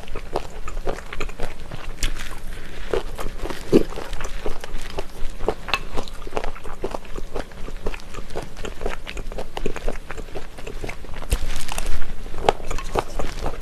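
Close-miked eating of spicy chicken feet (buldakbal): many small irregular crunches as the cartilage and small bones are chewed, with wet mouth sounds.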